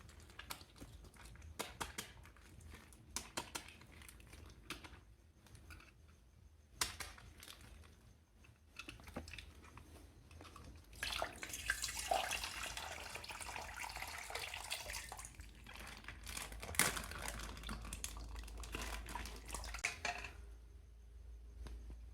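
Plastic bags crinkling and clicking as they are handled, then water running and splashing for several seconds from about halfway in.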